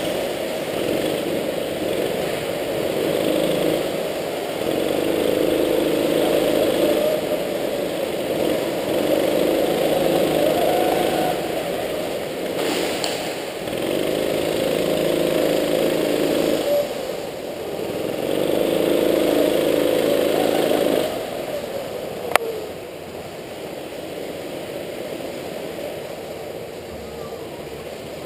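Go-kart engine heard from onboard, swelling and easing over and over as the kart accelerates along the straights and lifts off for the corners. About 21 seconds in it falls to a lower, steady run as the kart slows, and a single sharp click follows.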